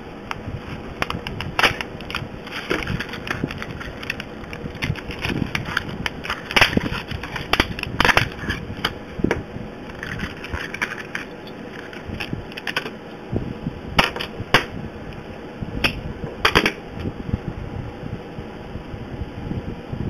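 Rigid plastic blister packaging crackling and being pulled apart by hand to free a padlock. Irregular crinkles and several sharp snaps and clicks run through it, the loudest a little past the middle.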